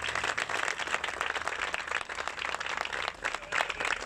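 A crowd applauding: dense, continuous clapping from many hands.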